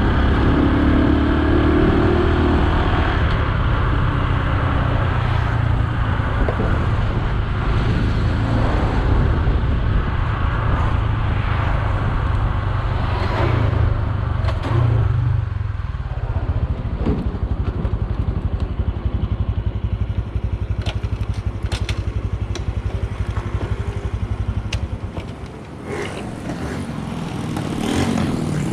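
Honda Super Cub C125's single-cylinder four-stroke engine running under way, with road and wind noise. It eases off about halfway through, drops lower near the end as the bike slows, then picks up again, with a few light clicks and rattles in the later part.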